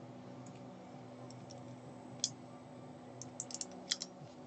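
A few light, sharp clicks: one about two seconds in, then a quick run of five or six near the end, over a faint steady hum.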